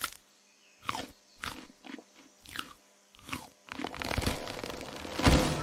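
A series of short crunching sound effects, one every half second or so, each with a quick falling sweep, running into a quicker cluster and a louder crunch near the end.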